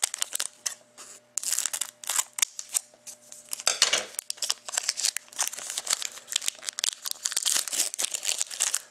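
Crinkling and tearing of a foil trading-card pack wrapper as it is opened by hand, a dense run of crackles with a louder rip about four seconds in.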